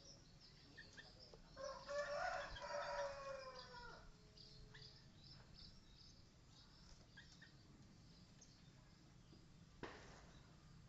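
A single long bird call lasting about two seconds, a couple of seconds in, falling in pitch at its end, over faint, scattered high chirps from small birds. A single sharp click near the end.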